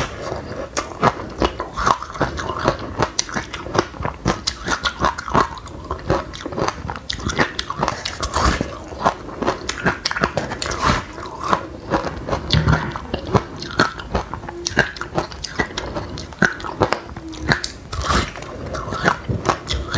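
Continuous crunching and chewing of dry chilli seeds and buckwheat grains: a dense stream of small sharp cracks, several a second.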